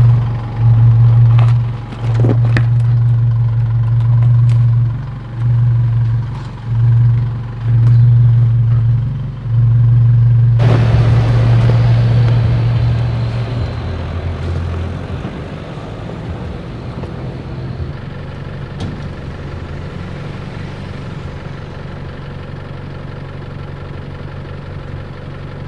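Four-wheel drive's engine droning, swelling and easing off in pulses with the throttle. About ten seconds in the sound changes abruptly, and from then on it runs more quietly and steadily.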